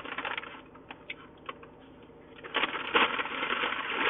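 Clicks and crinkling from handling small creamer cups and packets for coffee. A few sharp clicks come first, then a denser, louder rustle from about two and a half seconds in.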